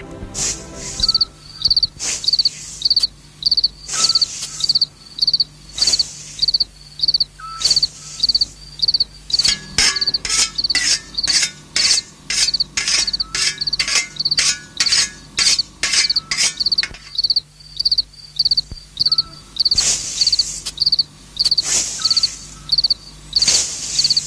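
Crickets chirping: a steady run of short, high chirps, a few a second, over a faint low hum.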